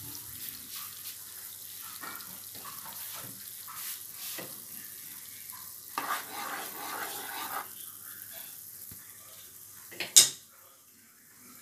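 Sugar syrup boiling in a non-stick wok with a steady bubbling hiss as it cooks toward one-string consistency. About six seconds in, a wooden spatula stirs through it, and about ten seconds in there is one sharp knock, the loudest sound.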